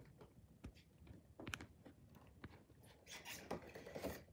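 Faint handling noises from a cardboard toy box being opened: a few light clicks, then a short rustle near the end.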